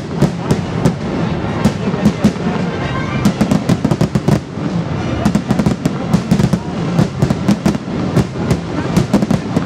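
Aerial firework shells bursting in rapid succession, a dense run of sharp bangs several times a second that starts suddenly and keeps going.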